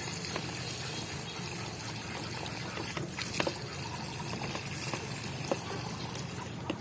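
Water running steadily as it fills a container, over a steady low hum, with a few faint clicks midway.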